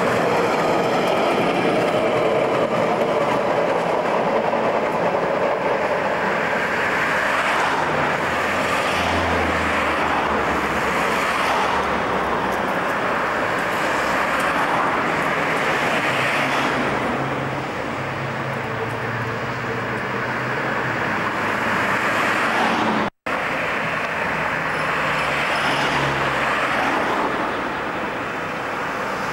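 Street traffic: cars going by and a W-class tram running along the street, passing close near the start. The sound drops out for an instant about two-thirds of the way through, at an edit.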